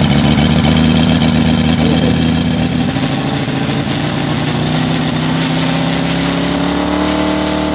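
Valach VM-250 R5 five-cylinder four-stroke radial engine of a half-scale RC Bücker Jungmeister running just after starting, with the model held on the ground. Its revs sag slightly at first, then climb slowly over the last few seconds.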